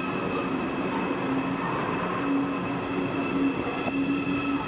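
Deutsche Bahn ICE electric train moving past close along the platform: a steady rolling rumble with a steady high-pitched whine on top and a lower hum that comes and goes.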